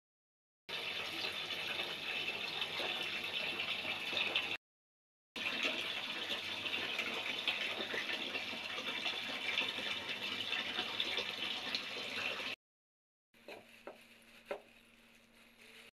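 A steady hiss that cuts off abruptly twice. Near the end it gives way to quieter light clicks as a small plastic spoon taps spice onto fish pieces in a plastic bowl.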